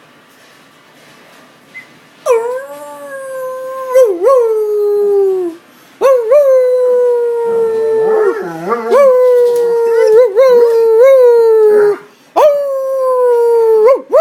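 Pet dog howling: three long, slowly falling howls with short yipping breaks in pitch, starting about two seconds in.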